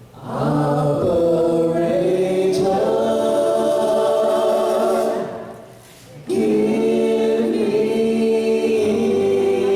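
Voices singing held notes together in harmony, in two long phrases with a short break about five and a half seconds in.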